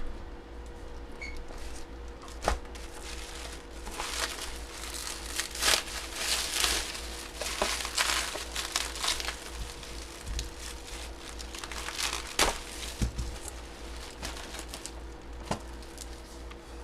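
Plastic packaging crinkling and rustling as it is handled and opened, with a few sharp clicks or knocks along the way.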